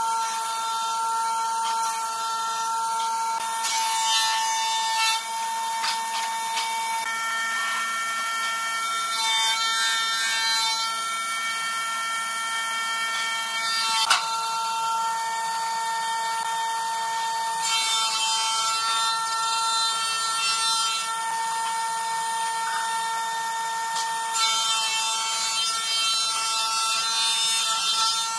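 Pencil scratching along a steel ruler on a pine board in several spells of strokes, with a single sharp tap about halfway through. A steady, high multi-tone hum of workshop machinery runs underneath.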